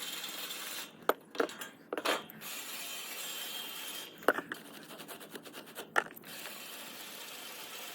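A steady hiss with five or so sharp clicks and knocks, from hands-on work cleaning an air-conditioner condenser unit.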